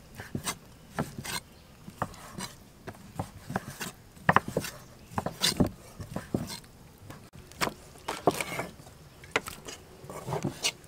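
Kitchen knives cutting raw chicken breast into chunks on thick round wooden chopping boards: irregular knocks of the blades striking the wood, a few a second.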